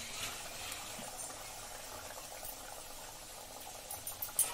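Moong dal–stuffed puri deep-frying in hot oil in a kadhai: a steady sizzle and bubbling of the oil, with a few sharper crackles near the end.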